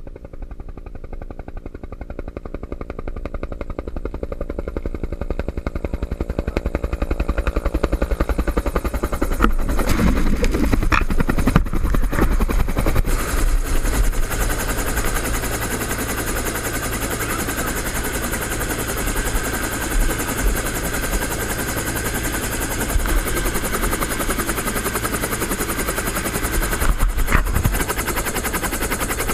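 Helicopter with a two-bladed main rotor, coming closer and growing louder over roughly the first ten seconds, then running steadily close by with a fast rotor chop while it sits on the snow with rotors turning.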